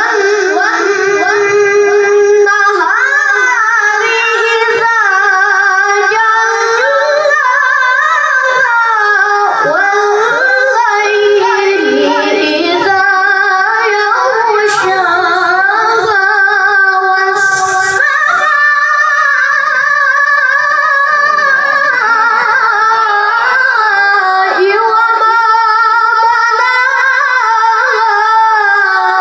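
A high voice, female or child-like, singing a long, ornamented melody with wavering held notes.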